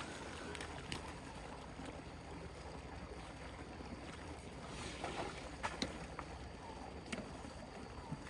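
Steady outdoor rushing noise of a small water spout splashing, with low wind rumble on the microphone and a few scattered sharp clicks.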